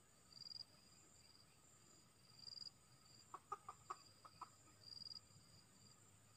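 Junglefowl rooster clucking, a quick run of about seven short clucks a little past halfway. Insects chirp steadily in the background, with a shrill pulse about every two seconds.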